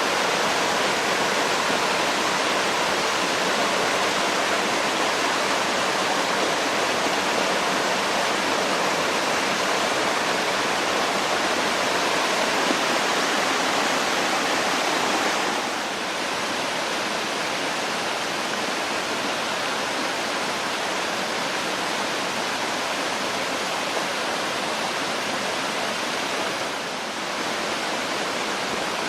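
Mountain valley stream rushing steadily over rocks, a continuous splashing water sound that drops slightly in loudness about halfway through.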